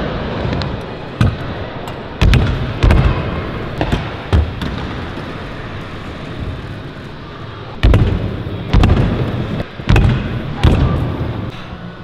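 Skatepark riding on wooden ramps: stunt scooter wheels rolling, with about eight sharp bangs of landings and deck impacts that ring in the large hall.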